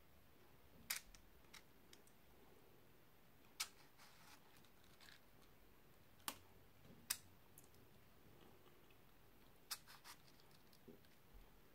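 Near silence with about five faint, sharp clicks scattered through it.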